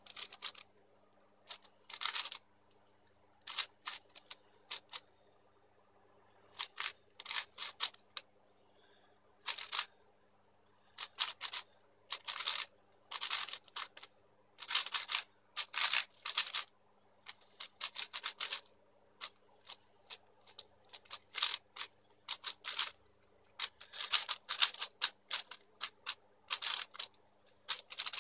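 Plastic YuXin Blue 4x4 speedcube being turned fast by hand: quick runs of clacking layer turns, each lasting up to about a second, broken by short pauses. The runs come closer together in the second half.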